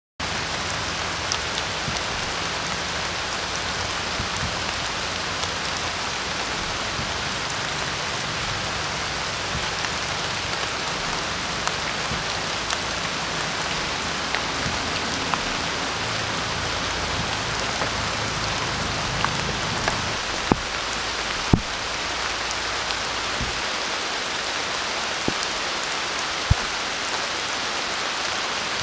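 Steady rain falling on a forest, an even hiss with scattered sharp clicks of individual drops.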